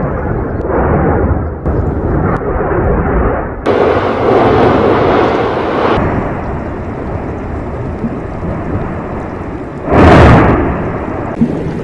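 Volcanic eruption on La Palma: a continuous deep rumble, with one loud boom about ten seconds in.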